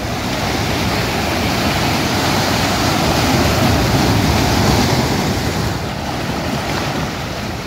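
Rough sea surf washing and breaking against the rocks of a breakwater, with wind on the microphone. The surge swells in the middle and eases near the end.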